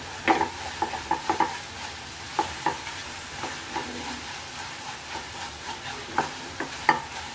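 Wooden spatula stirring and scraping a sticky coconut and date-palm jaggery filling around a non-stick pan, in irregular strokes with the sharpest scrapes near the start and near the end. The jaggery's liquid has cooked off, leaving the mix thick and sticky.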